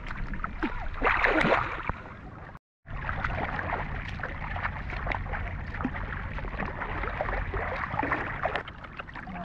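Shallow water sloshing and splashing, with many small splashes and clicks, a louder stretch of splashing about a second in and a brief cut to silence just before three seconds.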